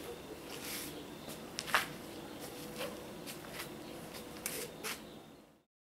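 Scattered soft scuffs and crunches, typical of footsteps on gravel and concrete, over a quiet outdoor background with a faint steady hum. The sound cuts off abruptly near the end.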